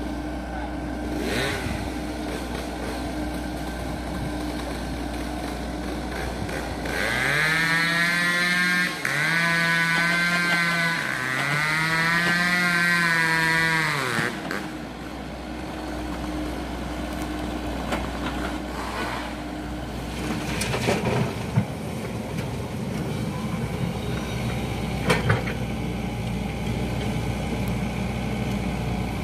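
Diesel engines of a mini excavator and dump trucks running steadily at an earth-loading site. Partway through, an engine rises to a loud, pitched drone in three long surges with short dips between, then drops back. Later come a few sharp knocks, typical of soil and clods landing in a truck bed.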